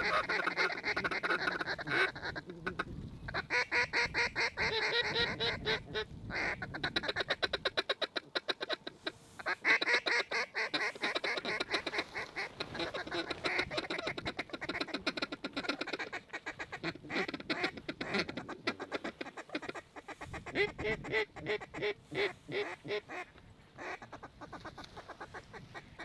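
Duck calls blown in quick quacks and rapid feeding chatter, in runs broken by short pauses, calling to a flock of ducks circling overhead.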